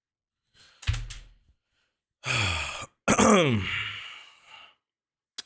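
A man's wordless vocal sounds: a breath blown against the microphone, then two heavy sighs that fall in pitch, the second one longer. A brief click near the end.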